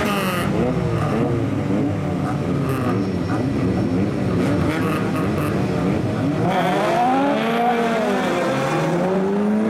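Engines of several race cars revving together on the grid, then pulling away with pitch rising through the gears from about six and a half seconds in.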